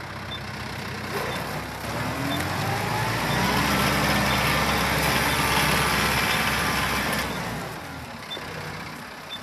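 Kubota M7060 tractor's four-cylinder diesel engine running as the tractor drives past. It grows louder over the first few seconds, stays loud for several seconds, then fades a little after seven seconds in.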